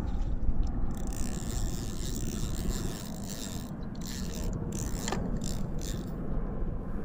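Spinning fishing reel during a cast: a hiss of line running off the spool for about two seconds, then a few seconds of clicking and ratcheting from the reel, over a steady low rumble.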